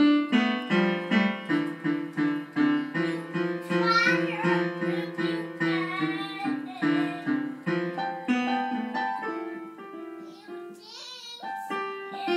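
A toddler banging on piano keys, striking notes and clusters about two or three times a second, with a child's voice singing along in places.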